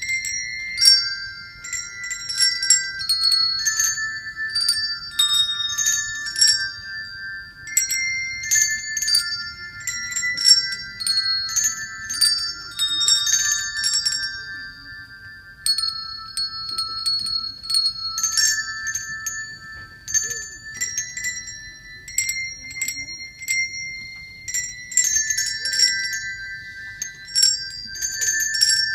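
A children's group playing a tune on small colored handbells, ringing one note after another so the high, ringing tones overlap.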